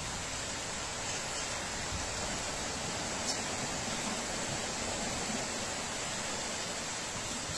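Steady rushing hiss of a heavy downpour and floodwater flowing down a street, with one short tick about three seconds in.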